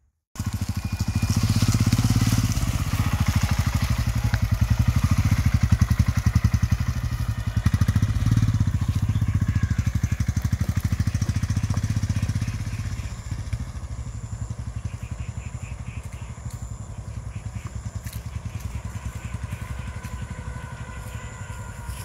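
Royal Enfield Himalayan's single-cylinder engine running hard as the bike is ridden off-road. It is loud and close at first, then quieter from about thirteen seconds in as the bike moves away across the field.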